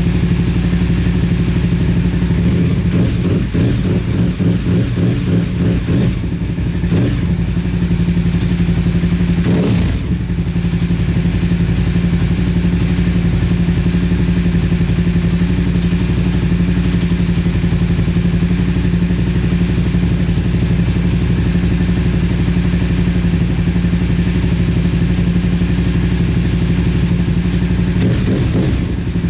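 Motorcycle engine running at a steady speed, with a rougher, uneven stretch a few seconds in and a brief change about ten seconds in.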